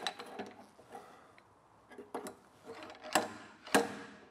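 Slide hammer hooked into the steel front grille panel of a Mini Moke, its sliding weight clanking against the stop to pull the panel outward. A few lighter knocks, then two sharp metallic clanks about half a second apart near the end.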